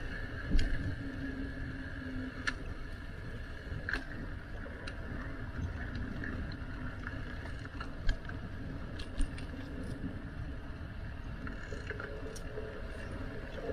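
Bicycle riding noise: a steady low rumble of tyres and wind, with scattered rattling clicks and knocks from the bike.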